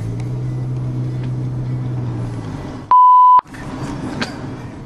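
A steady low drone that drops slightly in pitch at the start and fades out, then about three seconds in a half-second censor bleep: one pure, steady beep with all other sound cut out around it.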